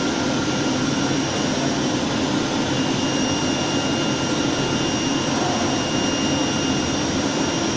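Flatbed CNC digital cutting machine running while its cutting head moves over the sheet: a steady rushing drone with thin high whines that come and go.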